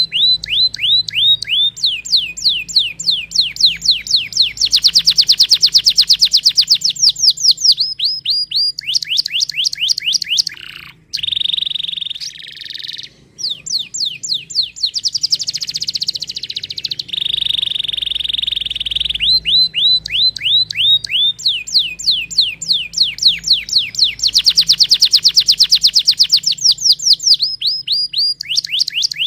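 Domestic canary singing: fast rolling trills of steeply falling notes broken by long held whistles, loud and continuous. The same run of phrases comes round again about two-thirds of the way through.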